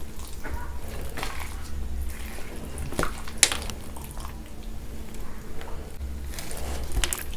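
Metal spoon digging into and scooping up thick mac and cheese topped with crushed hot Cheetos in a glass bowl. A few sharp clicks of the spoon against the glass come about 3 s in, just after, and near the end.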